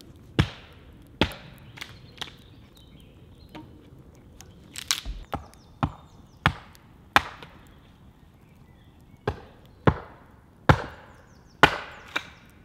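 Hatchet chopping and splitting wood on a log-round chopping block: about a dozen sharp chops at uneven intervals, some in quick pairs.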